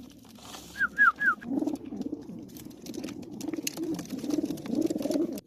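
Pigeons cooing repeatedly in low, rolling calls, with many light clicks and taps. Three quick falling chirps come about a second in, just before the cooing starts.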